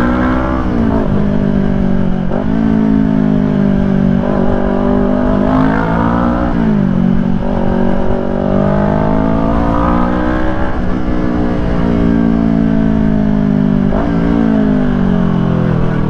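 Kawasaki Ninja 400 parallel-twin with a Yoshimura R11 full-system exhaust under way, heard from inside the rider's helmet. The revs climb steadily and drop sharply several times.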